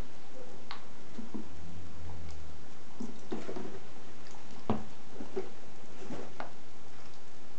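Pet rats wading and scrabbling in a shallow plastic tub of water with floating peas: soft splashing with scattered small knocks and clicks against the plastic, the sharpest about two thirds of the way in.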